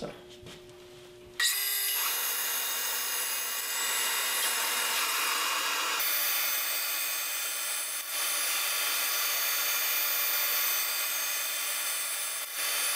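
Bandsaw cutting thin strips from a laminated wood board, heard at five times actual speed, so the cutting noise is high-pitched with a whine and no low end. It starts about a second and a half in and dips briefly partway through.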